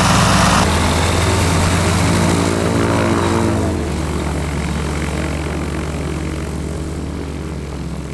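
Microlight trike's Rotax 582 two-stroke engine and propeller running loudly as the trike moves off. The engine note drops in pitch about four seconds in, and the sound then fades away.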